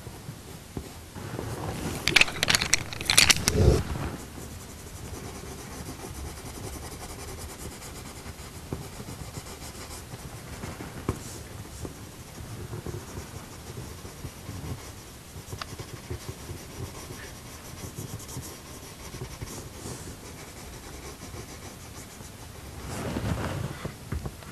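Coloured pencil scratching on paper in small shading strokes. Louder handling noise about two to four seconds in and again near the end, as pencils are changed.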